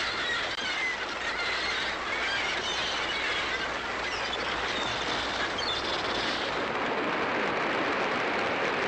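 An audience applauding, with birds squawking and chirping over the applause for roughly the first six seconds.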